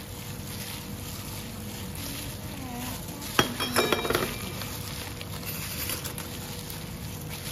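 Sliced pork being mixed by a gloved hand in a stainless steel bowl, with a quick cluster of metallic clinks about halfway through, over a steady background hum.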